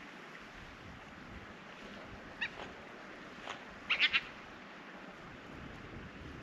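North American river otter calling: a short high call about two and a half seconds in, a fainter one a second later, then a quick run of three louder calls about four seconds in, over a steady background hiss.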